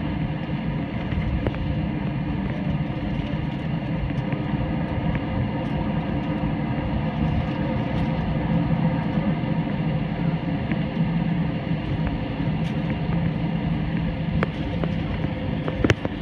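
Steady low hum of an airliner cabin on the ground before takeoff, with a single sharp click near the end.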